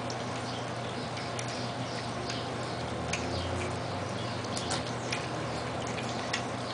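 Four-week-old Siberian husky puppies eating soft food from a metal pan: irregular wet clicks and smacks of several mouths lapping and chewing at once, over a steady low hum.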